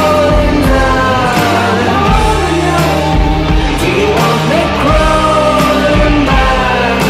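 Rock music with a slow, heavy drum beat and a steady low bass and guitar line, with wordless sung vocals gliding up and down over it.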